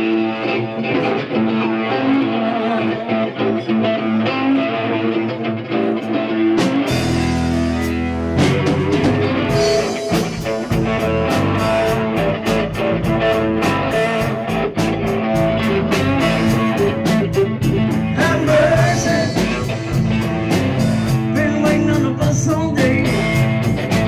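Live rock band playing: electric guitar, bass guitar and keyboard, with the drum kit and cymbals coming in about nine to ten seconds in and a steady beat from then on.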